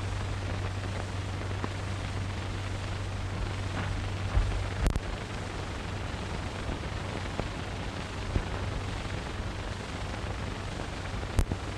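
Background noise of an old 1930s film soundtrack: a steady hiss over a low hum, with a sharp click about five seconds in and another near the end.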